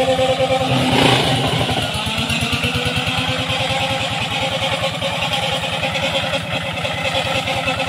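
Two-wheel hand tractor's engine running steadily with a rapid, even chug as the tractor-type grass cutter drives through undergrowth, with a brief louder rush about a second in.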